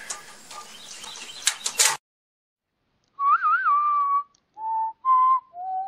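A few sharp clicks over outdoor background noise, then, after about a second of silence, a person whistling four short notes: the first longer and wavering, the others steady and falling lower at the end.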